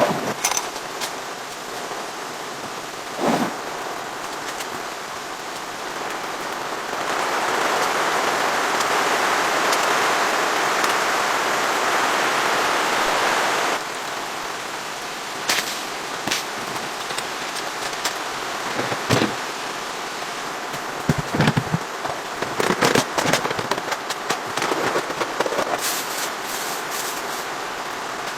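Steady rain falling, with a heavier, louder stretch from about seven seconds in that cuts off suddenly about fourteen seconds in. Scattered sharp taps and knocks sound over it, thicker near the end.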